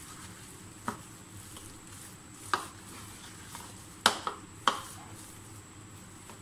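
Chicken pieces being mixed by hand in a thick batter in a ceramic dish, with about five sharp knocks as the pieces and hand hit the dish; the loudest knocks come in a quick cluster about four seconds in.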